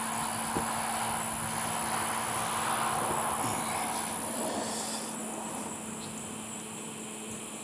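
Distant engine noise swelling and then slowly fading over several seconds, with crickets trilling steadily in the background.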